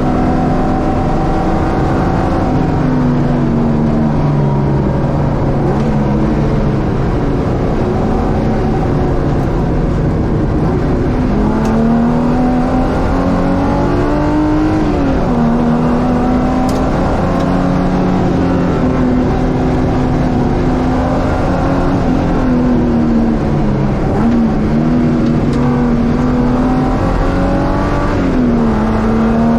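Ford Capri race car's carburetted engine running hard at racing speed, its revs rising and falling over and over, with several sudden drops in pitch.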